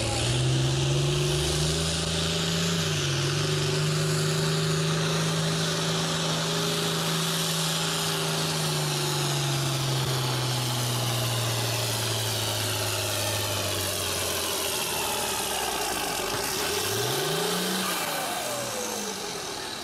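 Diesel farm tractor pulling a weight-transfer sled, its engine running hard under load with the pitch sagging slowly as the sled bears down, then falling away about fourteen seconds in. Near the end the engine gives a short rising rev.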